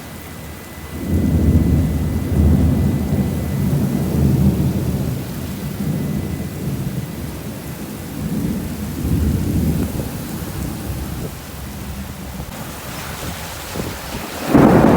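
Long rolling thunder beginning about a second in, rising and falling for several seconds before slowly fading, over steady rain.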